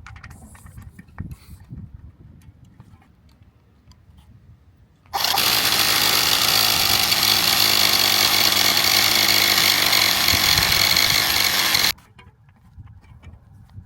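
Bosch EasyPump cordless inflator's compressor starting about five seconds in, running at a steady pitch for about seven seconds, then cutting off suddenly as it reaches the set pressure and stops by itself. Faint handling knocks come before it.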